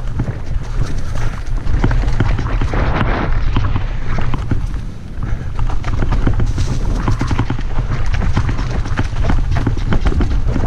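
Mountain bike descending a rough singletrail: tyres knocking over rocks and roots, with the bike rattling in rapid, uneven clatters over a constant wind rumble on the camera microphone. A brief louder hiss comes about three seconds in.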